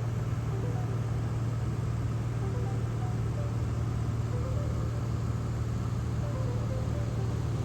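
Light aircraft's piston engine and propeller running steadily in cruise, heard as an even, unchanging drone from inside the cockpit.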